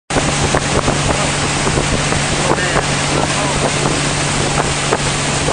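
Motorboat engine running steadily at speed while towing, a constant low hum under the rush of the wake and heavy wind buffeting the microphone.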